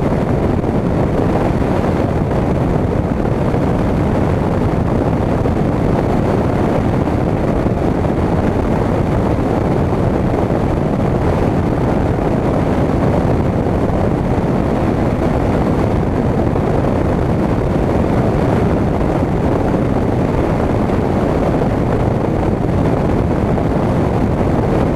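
Steady, loud rush of wind and engine noise from a Grumman single-engine light plane climbing out just after takeoff, heard through a camera mounted outside under the wing.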